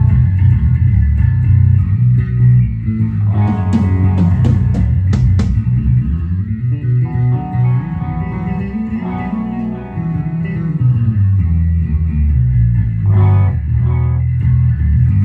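Dingwall D-ROC 5-string electric bass played through a Darkglass Anagram bass preamp pedal, heard mostly through the hall's PA speakers with a little of an Ampeg SVT-3PRO head and 8x10 cabinet: deep, sustained bass notes, with a run of sharp picked attacks about four to five seconds in.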